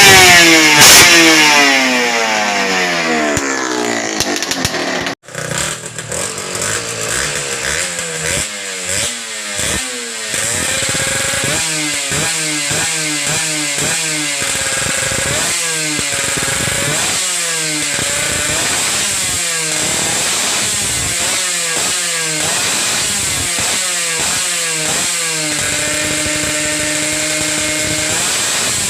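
Yamaha TZM 150's two-stroke engine. Its revs fall away over the first few seconds and the sound breaks off briefly about five seconds in. After that the revs rise and drop quickly about once a second, then hold at a steadier pitch near the end.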